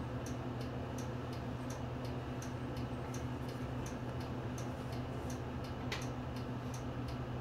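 Turn-signal relay of a Nissan Diesel Space Runner city bus ticking steadily at about three clicks a second, over the steady hum of the bus's idling engine, heard from the driver's cab. A single sharper click comes about six seconds in.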